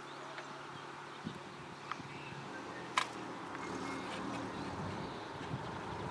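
Quiet outdoor background with a faint steady low hum and a few sharp clicks, the clearest about three seconds in.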